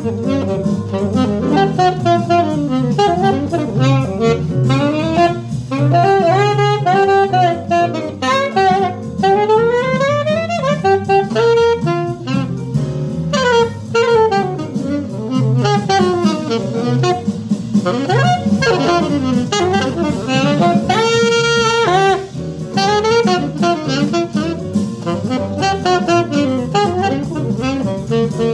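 Alto saxophone playing fast bebop lines that run quickly up and down, with a long held note about two-thirds of the way through.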